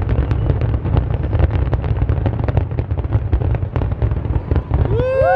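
Fireworks finale: rapid bangs and crackles over a continuous low rumble of bursts. Near the end a loud pitched, siren-like tone with overtones rises quickly and then starts to fall slowly.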